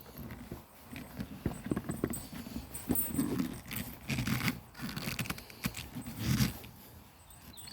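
A stiff rubber handlebar grip on a Honda CG125, oiled and being twisted and worked off the handlebar by hand: irregular knocks, scrapes and rubbing in short bouts, quieter near the end.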